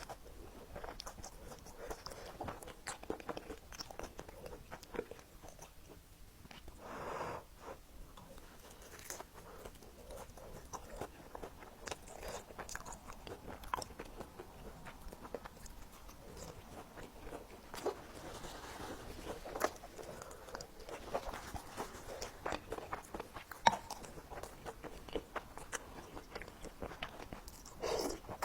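A person chewing and biting into a pan-fried meat pie with a mashed-potato filling, close to the microphone: a steady run of small crunches, wet mouth clicks and smacks, with one longer soft noisy sound about seven seconds in.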